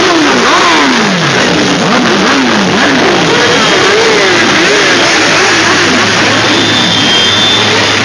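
A dense pack of motorcycles, sport bikes, tourers and scooters, riding past close by, with many engines revving up and easing off over one another. A steady low drone joins past the halfway point.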